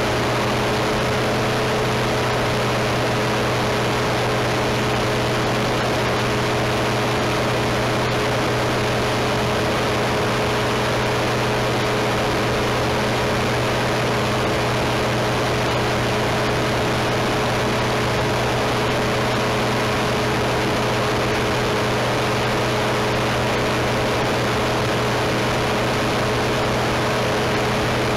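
Engine of a light powered aircraft droning steadily at constant speed in flight, over a constant rush of air noise.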